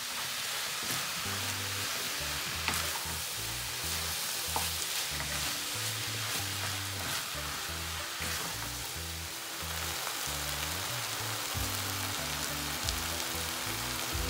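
Flaked fish and vegetable filling sizzling in a frying pan as it is stirred with a wooden spatula, with a few clicks of the spatula against the pan. Background music with a low bass line plays underneath.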